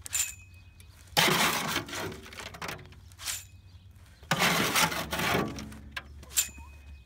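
A trowel scraping up and tipping gritty wet concrete mix into a fence-post hole: two scrapes, each about a second long, and two sharp metallic clinks that ring briefly, one near the start and one near the end.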